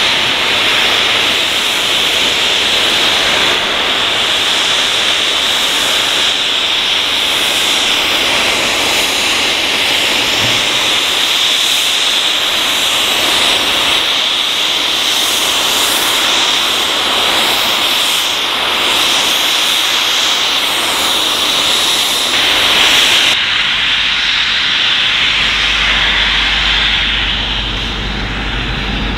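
Steam locomotive blowing off steam: a loud, steady hiss of escaping steam, a sign the boiler is at full pressure. About 23 seconds in the hiss eases and a low rumble comes in.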